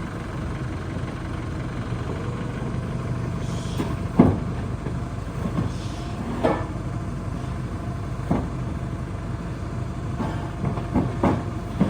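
Heavy vehicle's engine idling steadily, with a handful of sharp knocks and clunks scattered through it.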